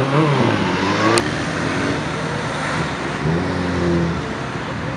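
Car engines accelerating past at close range, their pitch rising as they pull away, with a single sharp crack about a second in. A second engine revs up and holds around three seconds in, over steady traffic noise.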